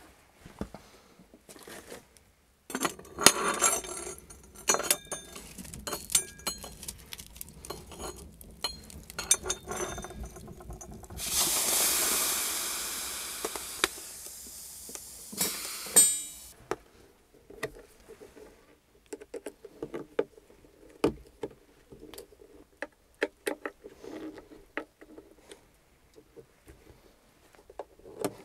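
Clinks and knocks of a metal pot and other things being handled in a small log room. About 11 s in, a loud hiss starts suddenly and fades over several seconds, followed by scattered light clicks and taps.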